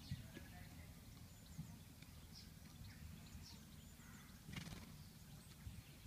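Faint open-air ambience: small birds chirping in short, falling notes over a low steady rumble, with one brief rustle about four and a half seconds in.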